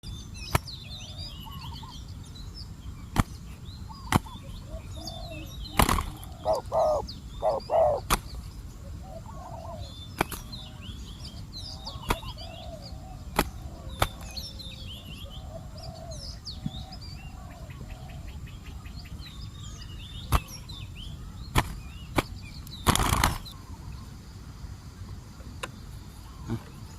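Spotted doves cooing, with one close, loud series of coos about six to eight seconds in and fainter answering coos after it, while small birds chirp high above. Sharp single clicks sound every few seconds, and there is a short noisy burst near the end.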